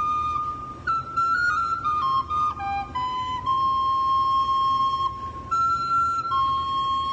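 A small end-blown wooden fipple flute with a blue mouthpiece playing a slow melody one note at a time: a run of short stepping notes in the first half, then a long held note, and two more held notes near the end.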